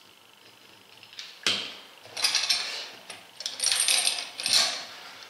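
Steel grip clamps with hooks and chain clinking and rattling as they are handled and clamped onto a peeled strip of tyre rubber. A sharp click comes about a second and a half in, then several bursts of metallic clatter.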